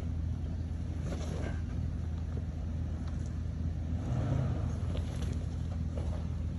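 A 4x4's engine running low and steady as it crawls along a rocky trail, with a few faint knocks and a slight swell in the rumble about four seconds in.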